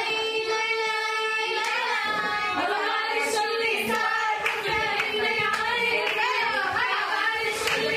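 High female voices singing a melodic song, opening on a long held note and then moving through wavering, ornamented phrases, with a few hand claps.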